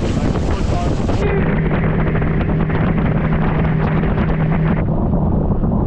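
Small boat's outboard motor running steadily at speed, with heavy wind buffeting the microphone. The sound changes abruptly about a second in and again near the end.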